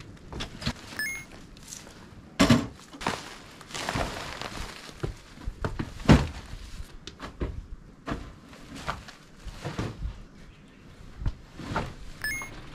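Bags and pieces of demolition debris being thrown and set down in the bed of a kei truck: irregular thuds and knocks with rustling of the sacks and footsteps between them. The two heaviest thumps come about two and a half and six seconds in.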